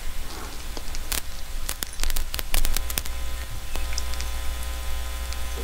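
Hand soldering of wire joints on a tube socket: scattered sharp clicks and taps from the wire, solder and iron being handled, over a steady low electrical hum that turns buzzier in the second half.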